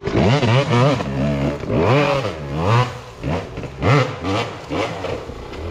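Dirt bike engine revved in repeated quick surges, rising and falling about twice a second, as the rider works the throttle up a rocky climb. It eases off near the end.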